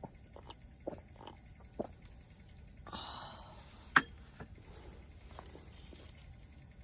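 Scattered light taps and clicks, with a short rustle about three seconds in and a single sharp knock about four seconds in.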